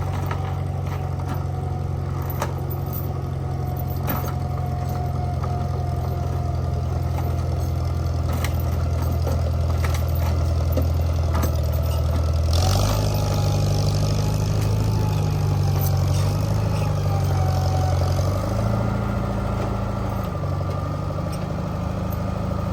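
Engine of a piece of lifting equipment running steadily, with a faint whine over it. About 13 seconds in the engine speeds up. It rises once more for a couple of seconds near the end, then settles back. A few light clicks and knocks are scattered through it.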